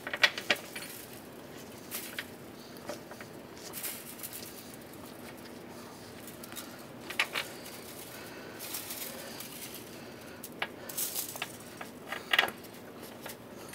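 Scattered light metallic clicks and clinks from steel bolts being threaded by hand into a street sweeper's curb broom mounting plate, with handling noise from a new broom segment. They come irregularly, a few at a time, with quieter stretches between.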